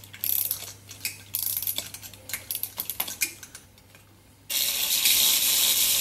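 Key of a wind-up clockwork toy being turned: several short bursts of quick ratcheting clicks as the spring is wound. After a brief pause, a steady hiss starts about four and a half seconds in and is the loudest sound.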